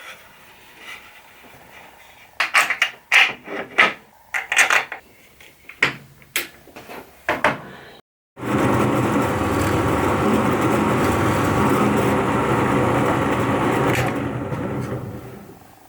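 A run of sharp wooden knocks and clatters, then after a cut a steady machine noise running loudly for about six seconds before fading out.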